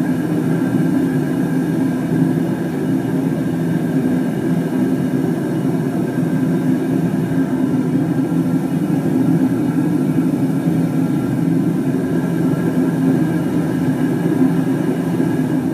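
Gas burner firing steadily into a homemade furnace built from an old gas cylinder: an even, continuous roar of burning gas, with flame venting from the furnace's top.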